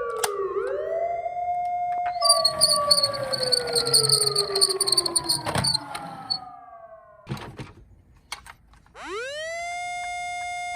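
A toy emergency-vehicle minicar's built-in siren sounding. It wails down and back up, then falls in one long glide about 2 seconds in, with a rapid high ringing buzz over it. A few clicks and a short lull follow, and then the siren winds up quickly from low pitch and holds near the end.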